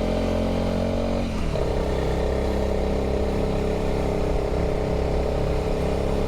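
Honda CRF300 single-cylinder motorcycle engine running under way; its note dips briefly a little over a second in, then holds steady.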